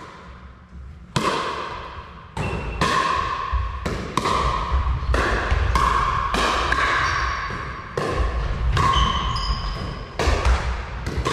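Pickleball rally: paddles striking the hollow plastic ball again and again, a sharp ringing pock roughly every half second to second, about a dozen in all. Each hit echoes in a large hall with a wooden floor.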